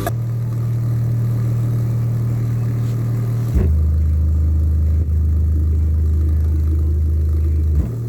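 Deep steady bass tones played loudly through a DIY Bluetooth speaker's 12-inch woofer. The tone holds, steps down to a lower pitch about three and a half seconds in, then steps back up near the end.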